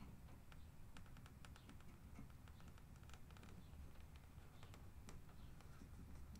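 Near silence with faint, irregular light clicks and taps: handling noise from the borescope probe being worked through a vent grille.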